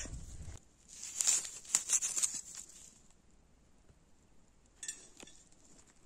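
Dry leaves and grass rustling and crackling in a few short bursts over the first couple of seconds, then quiet, with one brief crackle near the end.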